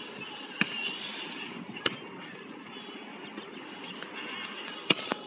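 A volleyball slapped by hands and forearms during a beach volleyball rally: three sharp smacks, the first just after the start, the second about two seconds in and the third near the end, over steady outdoor background noise.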